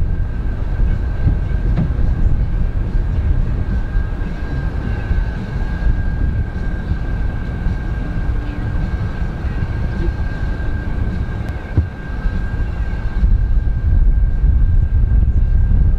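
Wind buffeting the microphone: a loud, steady low rumble with a thin steady high whine running through it. It dips briefly about three-quarters of the way through, then grows louder near the end.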